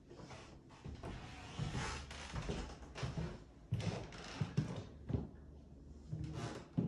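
Footsteps on a hardwood floor: a series of dull thumps at walking pace, with rustling handling noise from a handheld phone.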